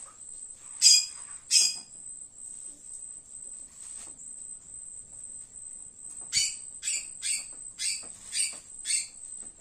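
A steady high-pitched insect drone, with two short, sharp sounds about a second in and a run of six more, about half a second apart, near the end.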